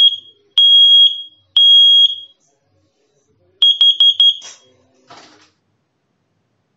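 Kitchen combination carbon monoxide and smoke alarm sounding its test: a very penetrating high beep, three long beeps about a second apart, then about three and a half seconds in a run of four short quick beeps.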